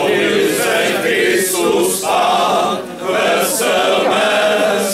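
Men's choir singing a Czech Christmas carol a cappella, in held phrases with brief breaks about two and three seconds in.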